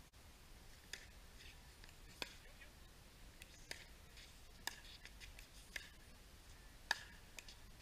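Pickleball paddles striking the plastic ball in a rally: sharp, hollow pops roughly once a second, the loudest near the end.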